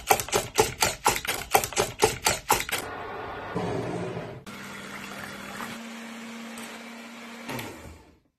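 Wire whisk beating eggs and sugar in a glass bowl, clinking against the glass in a quick even rhythm of about five strokes a second for nearly three seconds. Then a Bosch ErgoMixx electric hand mixer runs steadily, its motor hum stepping up slightly in pitch partway through, until it stops near the end.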